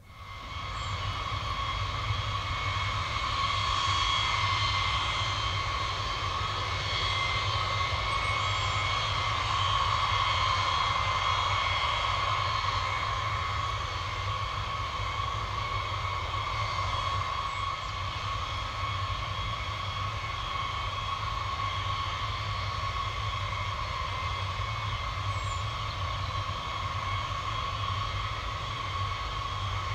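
Boeing B-52's eight Pratt & Whitney TF33 turbofans running at low power, a steady jet whine of several high tones over a low rumble. It swells up over the first couple of seconds and then holds.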